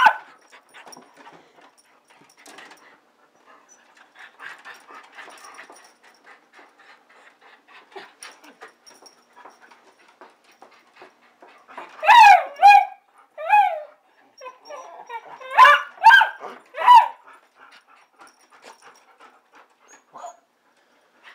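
Dog whining and yelping in excitement, expecting to go out: high cries that bend in pitch, one at the start, a group about twelve seconds in and another group around sixteen seconds. Faint clicks in between.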